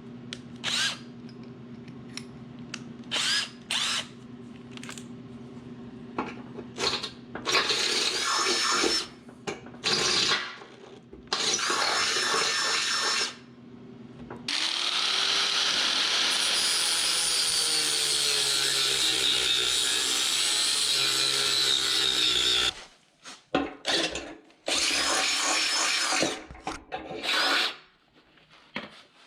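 Power grinder grinding steel on a riding mower deck. The motor hums freely at first, then bites the metal in short passes, then in one long continuous pass of about eight seconds past the middle, with its pitch sagging under load, and then more short passes near the end.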